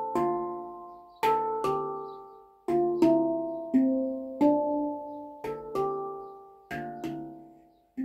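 Handpan (hang drum) in D minor played with the hands: a slow phrase of single struck notes, each ringing and fading away before the next.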